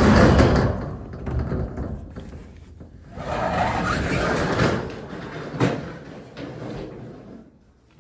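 A storage unit door sliding open in two long noisy pushes, with a sharp knock a little past halfway.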